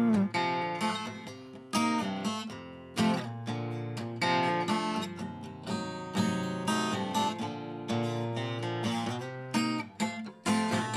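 Acoustic guitar playing alone, chords strummed and picked at a relaxed pace, each one ringing out and fading before the next.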